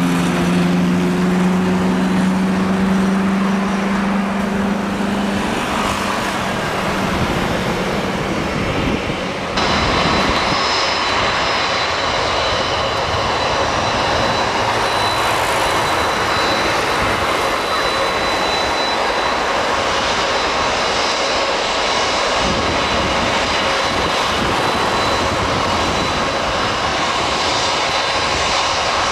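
Jet engines of a Boeing 767 freighter taxiing at low thrust: a steady rushing noise with a high whine. The sound changes abruptly about ten seconds in.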